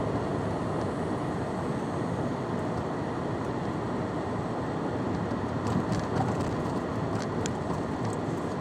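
Steady road and engine noise inside a moving car's cabin, with a few faint clicks in the second half.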